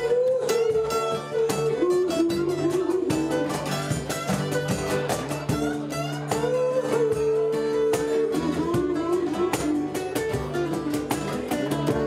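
Rock-yodel song: acoustic guitars strumming a steady rhythm while a man sings long held notes that slide from one pitch to the next.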